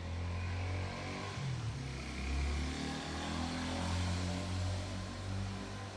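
A steady low engine hum, its pitch shifting slowly, over an even hiss.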